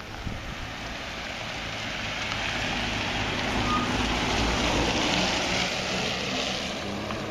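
An SUV towing a boat on a trailer drives past on a wet paved road. Its tyre hiss and engine noise swell to their loudest just past the middle, then ease off as it pulls away, over a low steady hum.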